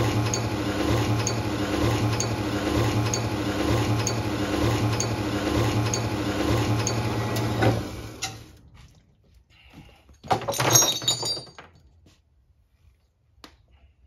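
Horizontal metal-cutting bandsaw running as it cuts square steel tube, a steady machine sound with a low hum and a high whine that stops about eight seconds in. A couple of seconds later comes a short burst of clinking.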